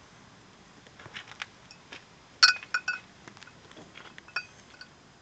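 Fire crackling, with sharp pops and ringing metallic pings from the heated metal basin. The loudest cluster comes about two and a half seconds in, and another about a second and a half later.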